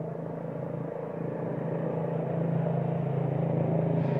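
A motor engine running steadily with a low hum, growing louder about two seconds in.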